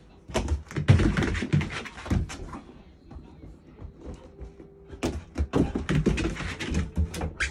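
Two bursts of knocks and thumps on a wooden floor, the second as a dog jumps down a wooden step and scrambles across the paper-covered floor.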